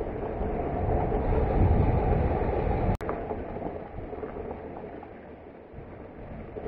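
Motorcycle running along a road, its engine rumble mixed with wind noise on the action camera. It cuts off sharply about three seconds in and resumes quieter.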